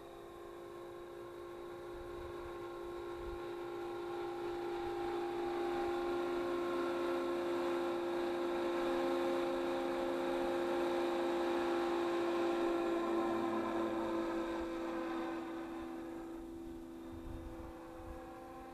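Electric Align T-Rex 500E RC helicopter with an MD500 scale body flying: a steady humming whine from its motor and rotors. It grows louder as it comes near, peaks around the middle, then fades as it flies away.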